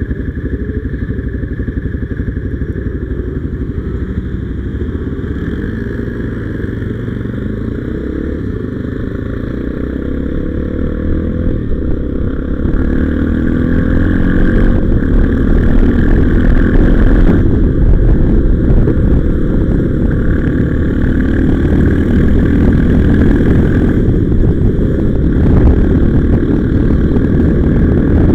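Motorcycle engine running at a standstill, then pulling away and riding on. It gets louder from about halfway through as the bike gets up to speed.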